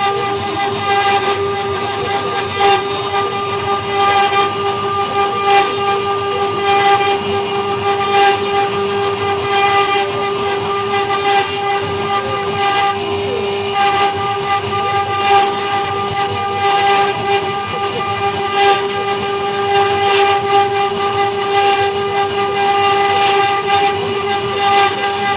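CNC router spindle running with a steady high whine while its small carving bit cuts into a wood block, with irregular scratchy ticks of the cutting.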